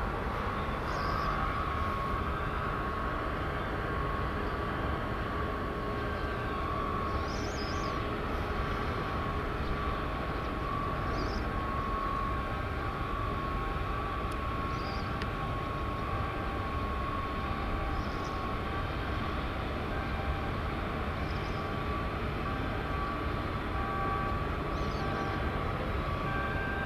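Steady shipyard machinery drone: a low rumble with a constant mid-pitched hum, and faint short high chirps every few seconds.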